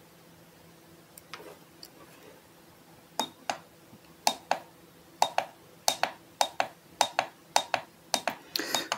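Sharp plastic clicks of the range button being pressed repeatedly on a YR1035+ battery internal resistance meter, coming in quick pairs about twice a second from about three seconds in. A faint steady hum runs underneath.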